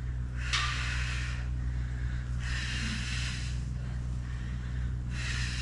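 A woman breathing audibly in time with exercise reps: three long, hissy breaths about two and a half seconds apart, following the inhale-on-the-way-down, exhale-on-the-way-up pattern, over a steady low hum.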